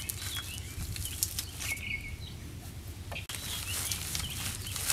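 A paper sack of dry Quikrete concrete mix being handled and tipped, the dry mix pouring out into a post hole in a steady rustling patter with scattered small clicks.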